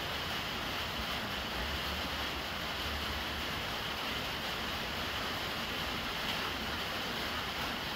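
Rainwater pouring from a plastic downpipe into a brimming water jar: a steady splashing rush of falling water onto the water's surface.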